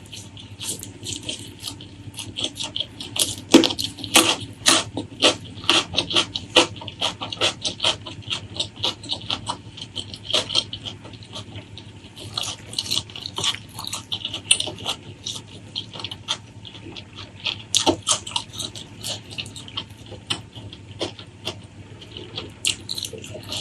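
Wet, close-up chewing and lip-smacking of someone eating braised pork trotter. A quick run of sticky clicks that is densest about three to seven seconds in, with another cluster in the middle and near the end.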